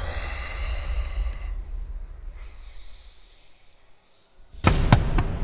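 A man snorting and breathing heavily through his nose over a low rumble that fades away. About four and a half seconds in, a sudden loud clatter with several sharp knocks.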